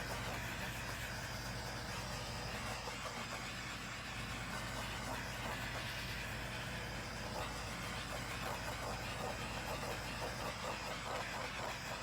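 Handheld butane torch burning with a steady hiss, passed over wet acrylic paint to pop air bubbles in the pour.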